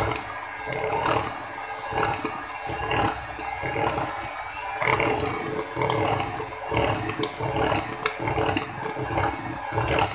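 Electric hand mixer running steadily, its beaters whisking milk into cake batter in a plastic bowl, with irregular clicks and scrapes of the beaters against the bowl.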